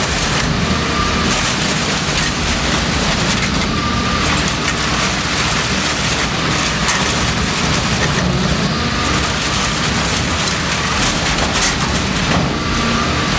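Industrial shredder tearing up a car: steady, dense grinding and crunching of metal over a low, continuous drone.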